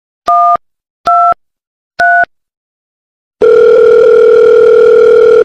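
Telephone touch-tone dialing: three short keypad beeps, each a little higher than the last, then a long steady phone-line tone lasting about two seconds that cuts off suddenly.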